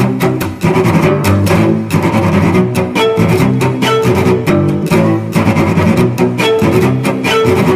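Background music led by bowed low strings, cello and double bass, over a steady beat with frequent short percussive hits.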